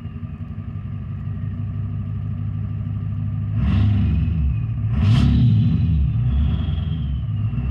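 Ford E350's 7.3 Power Stroke V8 turbo-diesel, fitted with a Holset HX50 turbo, hybrid injectors and dual 5-inch exhaust, idling and then blipped twice, about three and a half and five seconds in. After the blips a high turbo whistle falls slowly in pitch as it spools down.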